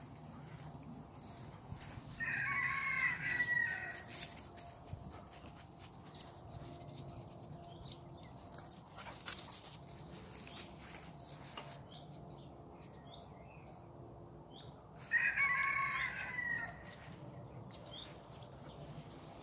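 Rooster crowing twice, each crow lasting about a second and a half, the second about thirteen seconds after the first.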